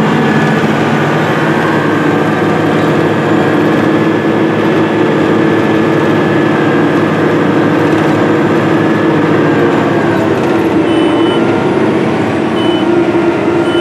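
The 580 hp diesel engine of a Case IH Steiger Quadtrac 580, heard from inside the cab, running steadily under load as it pulls a 16-row strip-till bar. A few faint short beeps sound near the end.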